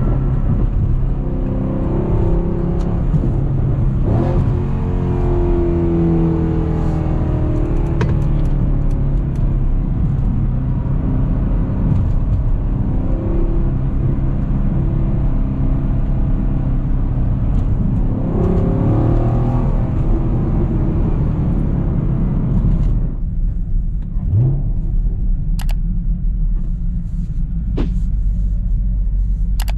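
Chevrolet Camaro SS 1LE's 6.2-litre LT1 V8 running while driving, a steady exhaust rumble that rises and falls with the revs. About 23 seconds in it drops to a lower, quieter rumble.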